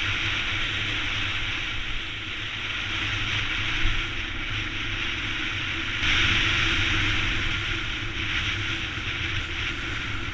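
Yamaha XT250's single-cylinder four-stroke engine running while riding, mixed with wind rushing over the microphone. It gets louder about six seconds in, with a short knock a little before.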